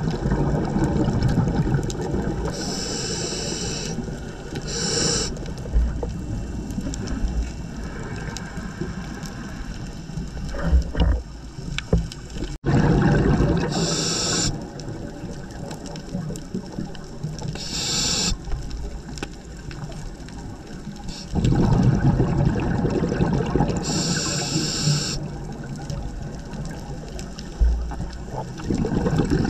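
Scuba regulator breathing heard underwater through a GoPro housing: short hisses of inhalation alternate with the low bubbling rush of exhaled air, several breaths in a slow cycle, with a sudden break about twelve seconds in.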